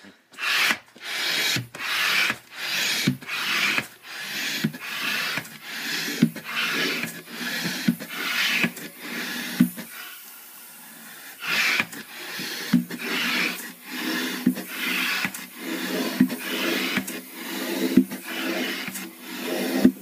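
Hand-operated stand-up air pump inflating a balloon through its hose: a steady rhythm of rushing air strokes, about one and a half a second, each with a click. The pumping pauses for a second or so about halfway, then resumes.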